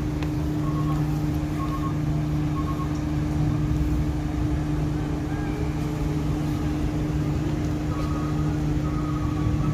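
Ferry machinery running with a steady low drone and a constant hum. Faint short high beeps recur several times over it.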